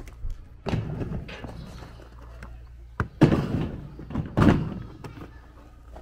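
Plastic storage boxes set down with dull thunks into a metal-frame hand cart, with some clatter. Several knocks, the loudest two about three seconds in and about four and a half seconds in.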